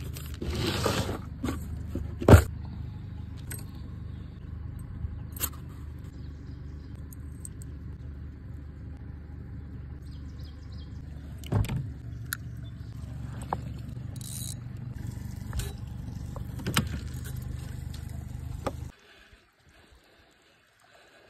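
Small boat's outboard motor running at a steady pitch, with a few sharp knocks and clatters over it. It stops suddenly near the end.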